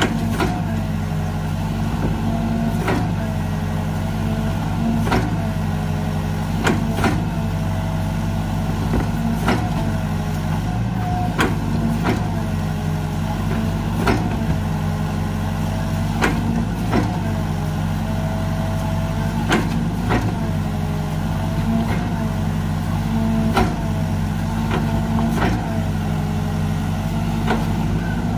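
Hydraulic excavator's diesel engine running steadily, with a whine that sags and recovers about every two seconds and a sharp clank at each cycle.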